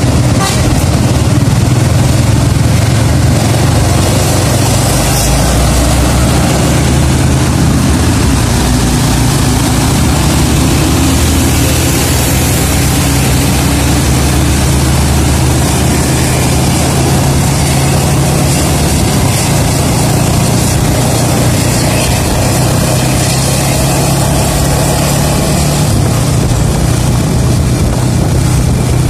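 Steady engine noise from road traffic, with a constant low hum and a dense rushing haze, heard from a moving vehicle following close behind a coach bus.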